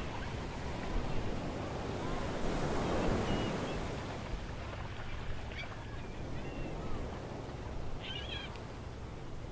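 Sea waves washing on the shore, swelling about three seconds in, with a few short bird calls scattered through.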